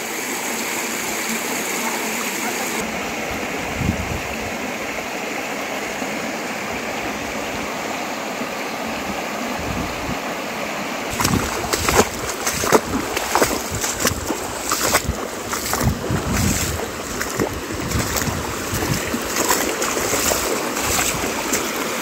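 Shallow river running over rocks, with footsteps wading and splashing through ankle-deep water, the splashing steps coming one or two a second from about halfway on.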